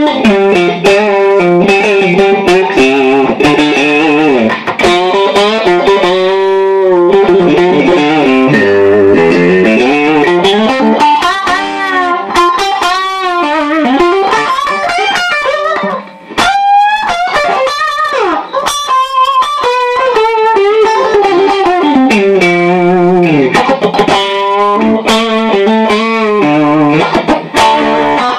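Electric guitar noodling through a Cali76 compressor and an OD11 overdrive pedal: lightly overdriven single-note runs with string bends, played steadily with a short pause about 16 seconds in.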